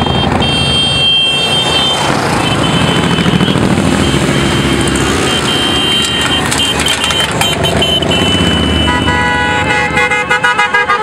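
A convoy of motorcycles and quad bikes passing with engines running, horns sounding in long toots a second in and again midway, then a quick series of short honks near the end.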